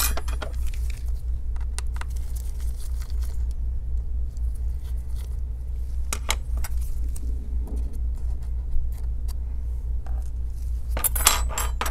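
Small metal parts and a screwdriver handled on an opened laptop: scattered light clicks and clinks, with a quick run of clinks near the end, over a steady low hum.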